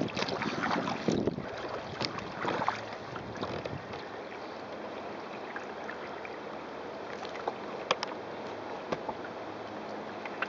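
Water splashing and rushing along a sailing kayak's wooden hull as it moves through choppy water, with wind on the microphone. The splashes surge in the first few seconds, then settle into a steady rush, with a sharp tick about eight seconds in.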